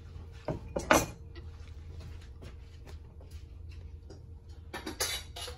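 Metal clanks against a stainless steel cooking pot, a short cluster about a second in and another near the end, over faint scattered crackling from the stew of chicken and vegetables cooking in the pot and a steady low hum.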